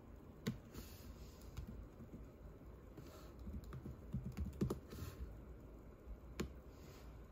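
Typing on a laptop keyboard: a run of irregular soft key clicks, with a few sharper, louder taps among them.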